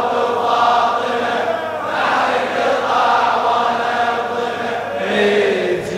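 Large crowd of men chanting the refrain of a Shia latmiya lament in unison, in long sung phrases. Near the end one man's voice stands out more clearly.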